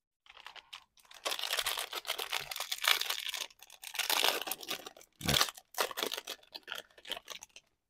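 Foil wrapper of a baseball card pack being torn open and crinkled in the hands, in several rustling stretches, with a short soft thump about five seconds in.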